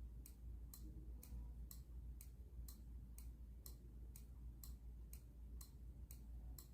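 Near silence with a faint, regular ticking about twice a second over a low steady hum.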